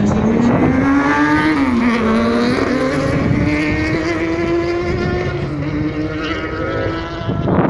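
Racing car's engine at full throttle, accelerating down the drag strip; its note climbs and drops back at gear changes about two and five seconds in.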